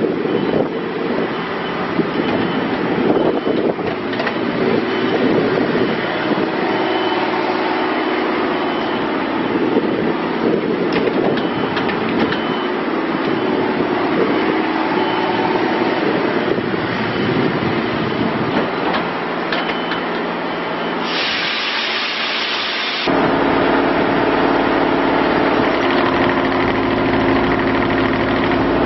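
Bobcat E35i mini excavator engine running continuously, its sound shifting as the machine works. About 21 seconds in it turns abruptly hissy for a couple of seconds, then settles into a steady engine tone.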